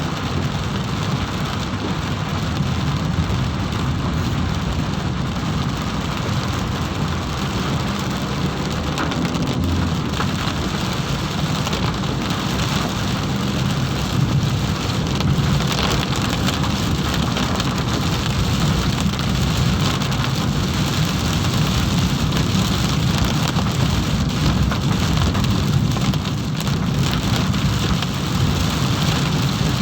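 Heavy rain falling steadily, a dense, even hiss that keeps the same level throughout.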